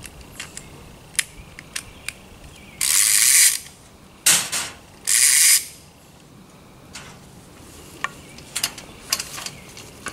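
Nylon ratchet strap being fed around a tree trunk: three loud sliding pulls of the webbing a little after the start, each about half a second, with scattered light clicks from the strap's metal hook and buckle.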